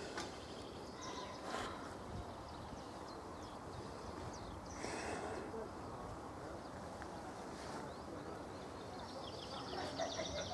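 Songbirds chirping a few times and giving a fast trill near the end, over a faint steady outdoor hiss.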